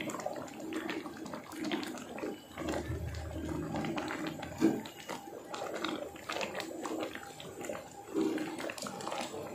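Wooden ladle stirring thick chickpea curry in an aluminium pot: wet, irregular squelching and gurgling of the gravy, with one sharp knock of the ladle against the pot about halfway through.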